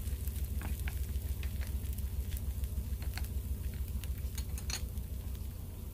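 Egg-battered tofu and burdock pancake frying gently in oil in a nonstick pan over medium-low heat: scattered pops and crackles of spattering oil, over a steady low hum.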